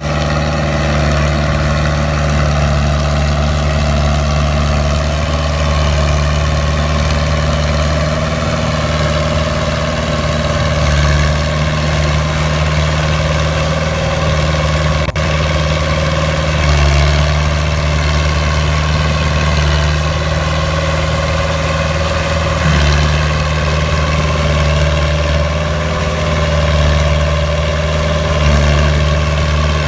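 Fiat 80-66 DT tractor's diesel engine running steadily while ploughing a paddy field, swelling in level every five or six seconds. A faint click about halfway through.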